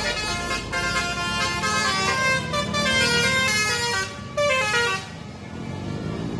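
A bus's Basuri 'telolet' multi-tone horn playing a quick tune of stepping notes, stopping about five seconds in and leaving a low rumble.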